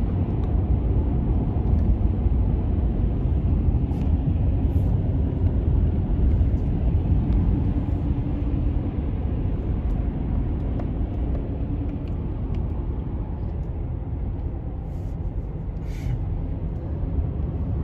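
Steady low rumble of tyre and engine noise inside the cab of a Chevrolet pickup truck cruising on a highway.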